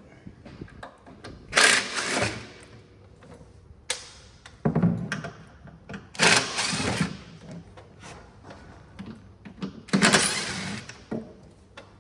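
Hand ratchet with a Torx bit clicking in three short runs, about a second each, as it backs out the screws of a shield. A few sharp knocks fall between the runs.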